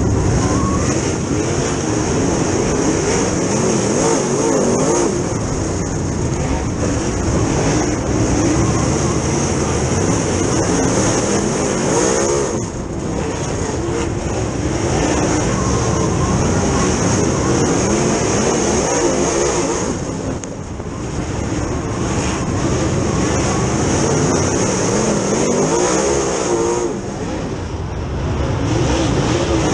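Super late model dirt race car's V8 engine, heard from inside the cockpit while racing in a pack. The engine note rises and falls with the throttle and drops off briefly three times as the driver lifts for the turns.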